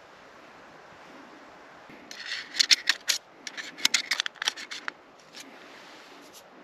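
Ferro rod struck in a quick run of sharp scraping strokes, about a dozen in clusters, throwing sparks onto a small camp-stove burner to light it. One last single tick follows.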